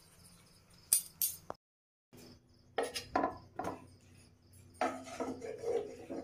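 A metal spoon clinking and scraping against a cooking pan: a few sharp knocks about a second in, then repeated clinks and scrapes through the second half.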